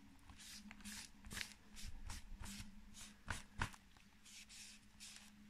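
Alcohol-soaked paper wipe rubbed briskly back and forth over a paper book cover, giving a faint rhythmic rustle of a few strokes a second. The wiping lifts leftover glue smudge and smooths down the freshly glued cover.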